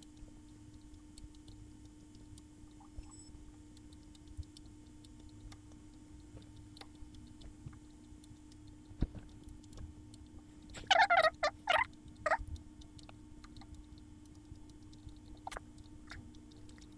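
An animal's burst of several short, rapid, loud calls about eleven seconds in, over a steady low hum and scattered faint clicks.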